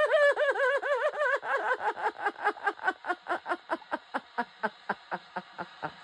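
A person's excited celebration: rapid high-pitched laughing cries, about five a second, that grow shorter and breathier, trailing off into panting.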